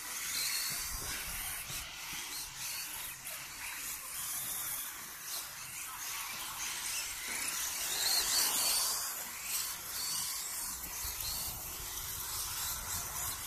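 1:10 scale electric RC rally cars driving over a hard sport-court surface: a steady hiss of tyres rubbing and scrubbing, with a faint electric motor whine that rises and falls, loudest about eight seconds in.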